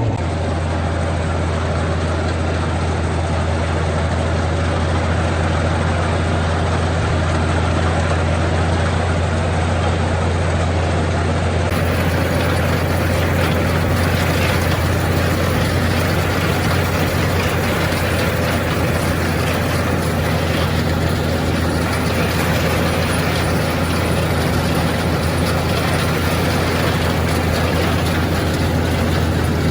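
International 460 Utility tractor's engine running at a steady speed, a constant low hum with no change in pitch.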